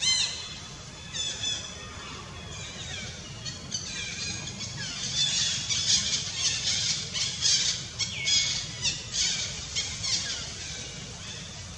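A series of high-pitched squealing animal calls, many short falling cries in quick succession, busiest and loudest through the middle.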